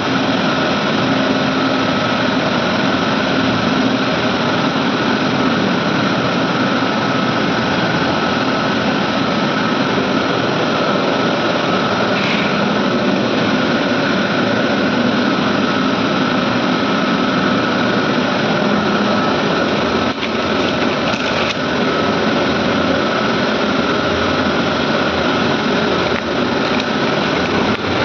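Medical air compressors running steadily: a loud, even machine hum with a steady whine on top.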